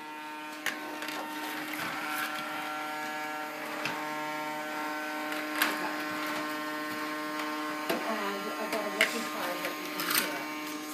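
Toy vacuum cleaner's small electric motor running with a steady buzzing hum, with a few light knocks and clatters as it is pushed around.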